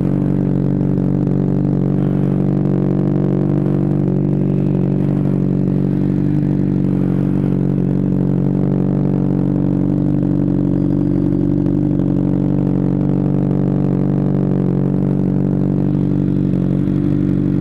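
Honda CBR600RR motorcycle's inline-four engine idling steadily, with no revving.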